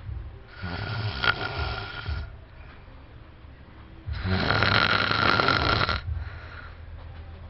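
A sleeping man snoring loudly: two long snores about three and a half seconds apart, the second louder, with a quieter breath between them.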